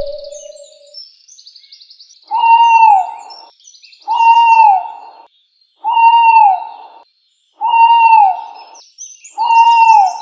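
An animal call repeated five times at an even pace, each a short hooting tone that holds its pitch and then drops at the end, with small birds chirping faintly behind.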